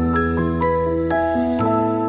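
Background music: a gentle keyboard melody, its notes stepping a few times a second over a held bass note.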